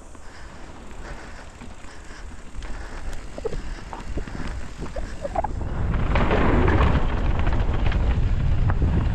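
Mountain bike riding down a dirt trail: tyre and frame rumble with wind buffeting the microphone, growing louder about six seconds in, with a few short squeaks midway.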